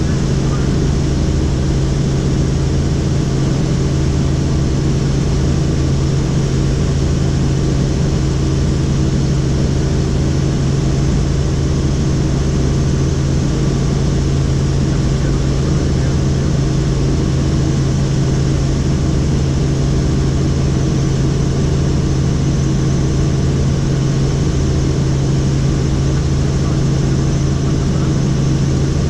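Helicopter in flight: the loud, steady drone of its rotors and engine, with a constant low hum that does not change.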